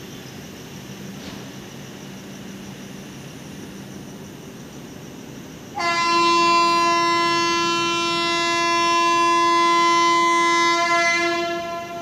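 A WAP7 electric locomotive's horn sounds one long, steady blast of about six seconds, starting about six seconds in. Before it there is a faint steady low hum from the standing train.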